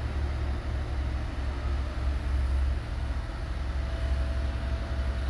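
Heavy-haul semi tractor's diesel engine running at low speed with a low, steady rumble as the rig creeps forward under a load. A faint steady whine joins about four seconds in.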